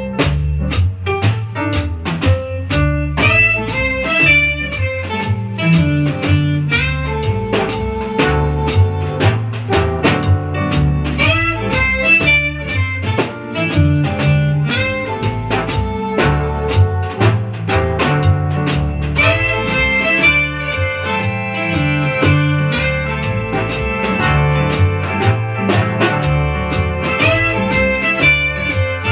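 A swing piece played on a drum kit with wire brushes, mainly strokes and taps on the snare drum, over a backing track of pitched instruments.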